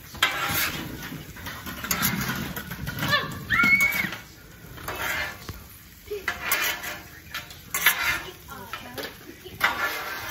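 Metal cooking utensils clattering and scraping on a hibachi griddle in short, irregular strokes. A brief high-pitched cry is heard about three and a half seconds in.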